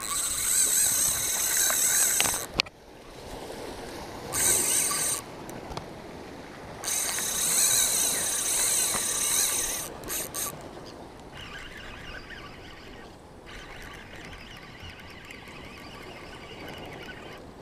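Spinning reel's drag buzzing as line peels off under a hooked kingfish's first run. The drag runs in three long bursts over the first ten seconds, then gives way to a fainter, steadier whir from the reel.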